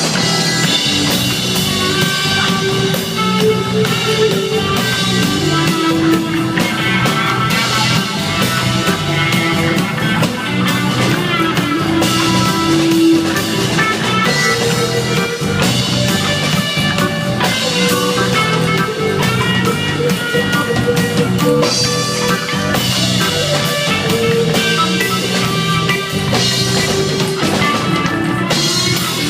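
A reggae dub band playing: drum kit and bass keeping a steady beat under guitar and held melodic lines.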